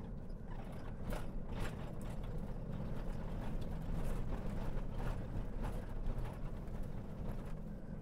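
Vehicle driving along a dirt road, heard from inside the cab: a steady low rumble of engine and tyres with irregular light rattles and knocks.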